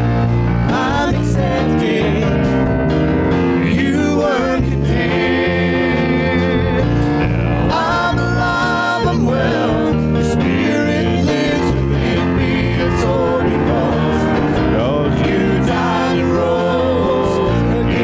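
Live church praise band playing a gospel worship song, with sung vocals over keyboard, acoustic guitar and percussion.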